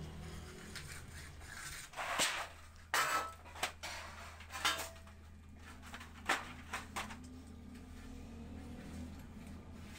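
Sheet-steel panels clanking and rattling as they are handled: a series of sharp metallic knocks with brief ringing, bunched between about two and seven seconds in, then quieter.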